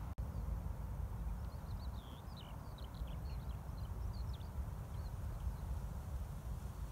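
A small songbird twittering in a quick run of short high chirps for a few seconds, over a steady low rumble.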